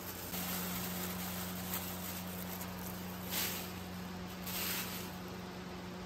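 Soft, brief rustles and scrapes from handling homemade dog food, a few times, over a steady low hum.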